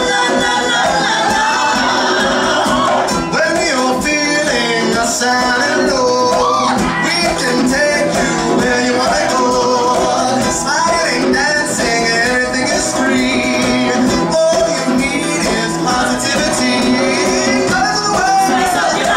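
A man singing live with ukulele, flute and cello accompaniment.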